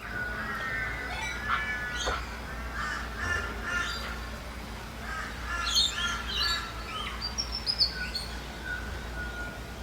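Dawn chorus of several birds chirping, whistling and warbling over one another, with a steady low rumble underneath.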